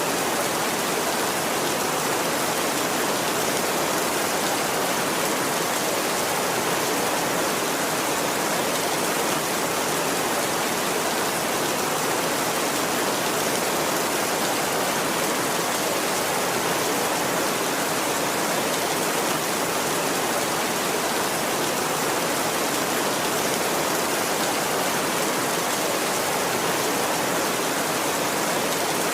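Heavy rain falling on a tin roof, a steady, even hiss with no let-up and no thunder.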